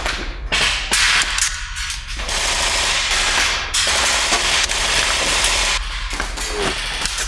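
Heavy automatic gunfire in long rapid bursts, with brief lulls about one and a half seconds in and again near the end.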